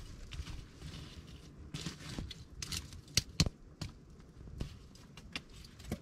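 Small wood campfire crackling with scattered sharp pops and cracks, the loudest a little past halfway, along with light scraping as a stick is pushed through the embers.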